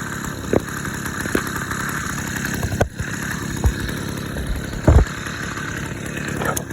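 Motorized bicycle's small ported engine running steadily while ridden, with a few short thumps, the loudest about five seconds in.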